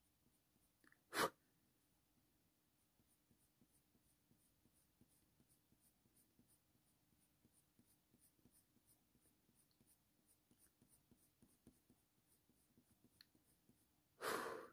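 Faint, short scratching strokes of a Faber-Castell Polychromos coloured pencil on hot-press watercolour paper, as fine detail is drawn in. There is one sharp click about a second in and a brief louder sound just before the end.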